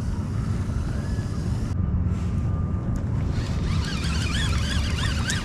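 Wind buffeting the microphone out on open water, a steady low rumble. Faint warbling tones that rise and fall over and over come in during the last two seconds.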